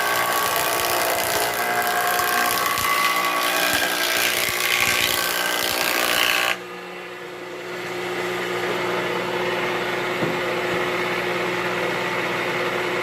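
Acerbi jointer running, its cutterhead planing a board with a loud hissing cut for about six seconds. The cut stops abruptly and the machine runs on with a steady hum as the cutterhead spins freely.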